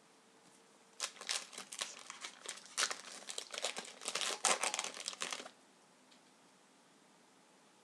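Trading card pack wrapper being torn open and crinkled in the hands: a dense run of crinkling and tearing starting about a second in and stopping suddenly after about four and a half seconds.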